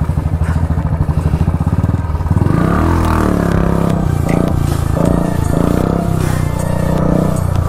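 Motorcycle engine running with an even beat, then revving up about two seconds in and pulling harder as it accelerates.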